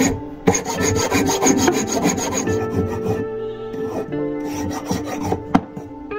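Hand file rasping on a small metal block held in a hand vise, in rapid back-and-forth strokes that thin out after about two and a half seconds, with a sharp click near the end. Soft background music plays underneath.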